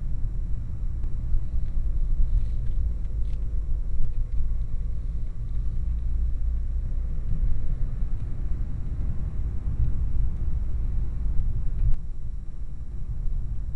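Steady low rumble of a car driving along a narrow asphalt road, heard from inside the cabin: engine and tyre noise.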